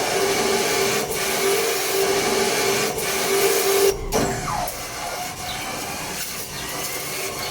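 Lathe running under power, a steady whine over a hiss, with brief breaks about one, three and four seconds in.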